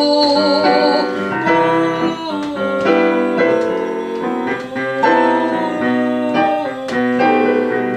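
A digital piano plays chordal accompaniment for a vocal exercise: a continuous run of struck chords and notes. In the first second, a wavering sung note with vibrato sounds over it.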